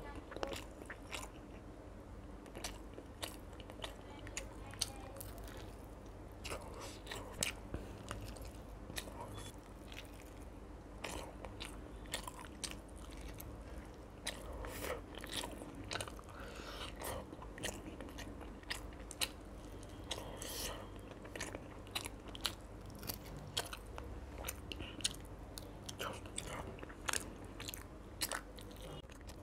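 Close-up eating sounds: a person bites into a crisp fried fish by hand and chews, with many short crunches and clicks spread through the chewing.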